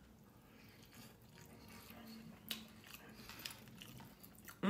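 Faint chewing of a mouthful of rice and chicken adobo eaten by hand, with a few soft mouth clicks.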